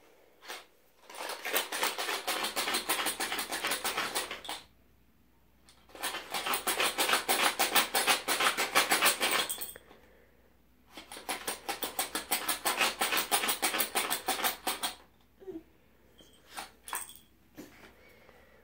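Colored pencils rattling inside a Crayola cardboard box as it is shaken: three bouts of rapid rattling a few seconds each, then a few separate clicks near the end.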